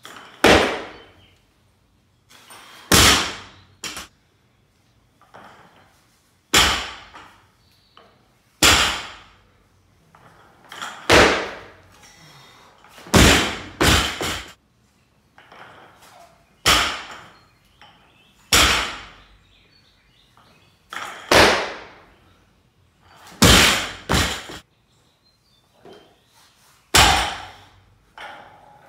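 Barbell loaded with bumper plates repeatedly dropped onto a lifting platform: a loud thud every two or three seconds, some doubled or tripled in quick succession.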